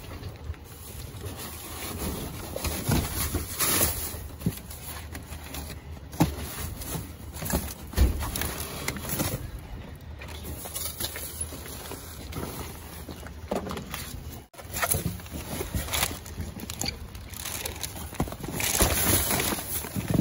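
Plastic rubbish bags crinkling and cardboard boxes scraping as the contents of a dumpster are rummaged through by hand, with a few sharp knocks and a louder burst of rustling near the end.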